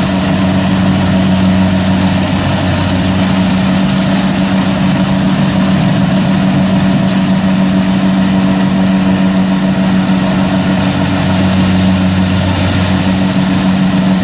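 Kubota DC-60 combine harvester running steadily under load as it cuts rice: a loud, constant engine drone with a deep hum.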